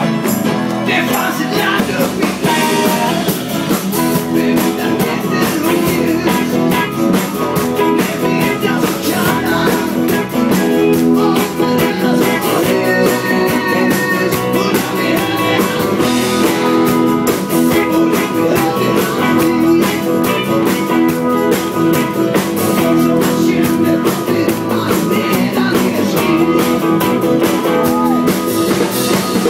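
Live band playing a rock song: several acoustic guitars strummed, with voices singing into the microphones.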